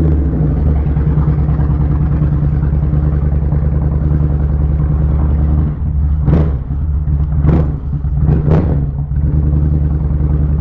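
Kawasaki Vulcan 1500 Nomad V-twin motorcycle engine idling steadily while still cold, with the choke pulled out and the idle running high. Three short, sharp noises cut in between about six and nine seconds in.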